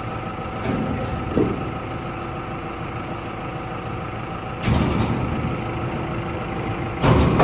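A heavy vehicle engine idling steadily, such as that of a forklift or truck used for the loading. Louder surges of noise come about a second in, around five seconds, and loudest near the end.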